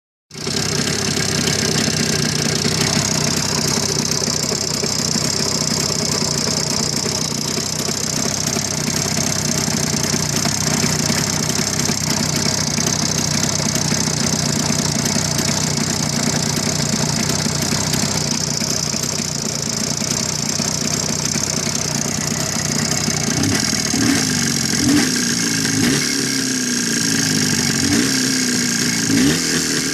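Jawa 634 two-stroke twin-cylinder motorcycle engine idling steadily, then revved in a series of short throttle blips from a little past the two-thirds mark. The owner reports a knock in this engine that appears at idle after the throttle is closed.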